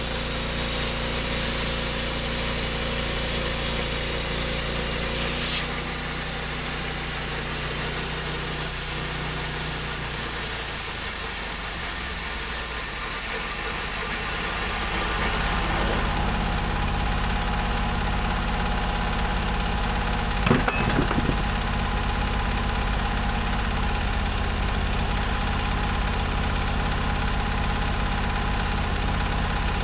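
An engine running steadily with a bright hiss over it; the hiss stops abruptly about halfway, and the engine carries on idling. A brief rattle of clicks comes a few seconds later.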